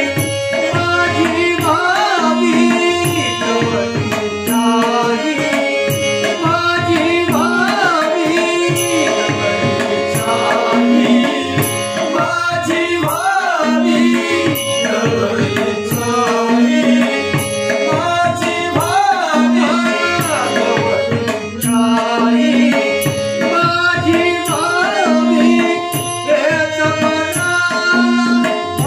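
Marathi devotional bhajan: a man singing with harmonium and tabla accompaniment. The harmonium holds sustained chords, and the tabla plays a steady rhythm under the voice's sliding ornaments.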